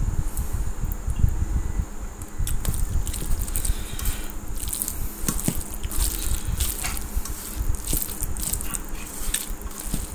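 Fingers kneading and mixing cooked rice and curry on a steel plate: a run of short wet, squishy crackles over a low rumble, thickening from about two seconds in.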